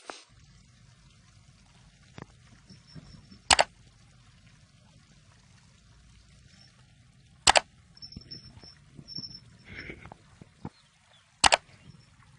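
Three loud, sharp cracks, about four seconds apart, over a faint low hum, with a few faint high chirps between the second and third.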